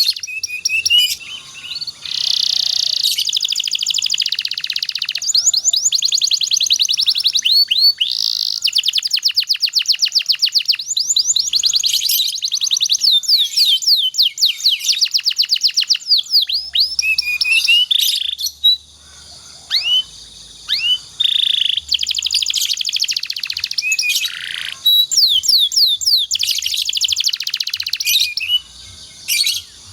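Domestic canary singing long, fast rolling trills and rapid chirped phrases, high-pitched, with brief breaks between phrases.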